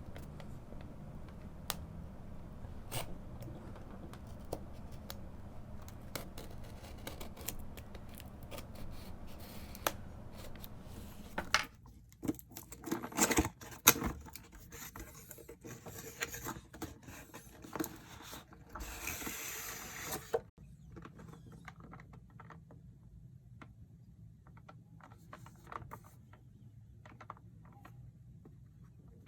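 Cardboard box and plastic packaging of a boxed action figure being handled and opened: scattered scrapes, taps and clicks, a run of louder knocks about halfway through, and a couple of seconds of continuous rustling or tearing a little later, then softer clicks.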